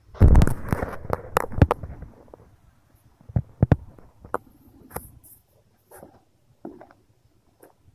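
Handling noise from a phone camera being set in place: loud rubbing and bumps against the microphone for about two seconds, then scattered sharp clicks and knocks that thin out.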